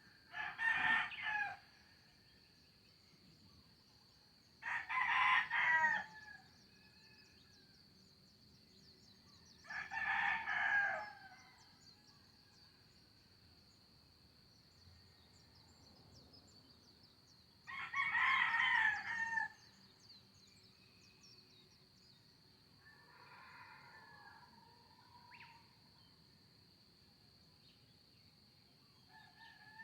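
A rooster crowing four times, each crow about a second and a half long and several seconds apart, followed by a fainter crow about two-thirds of the way through. A steady high-pitched drone runs underneath.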